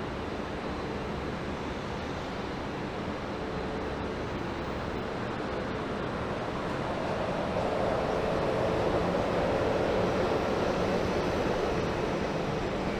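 Jet airliner engine noise, a steady rush with a faint hum in it, growing louder to a peak about eight to eleven seconds in and then easing off as the aircraft passes.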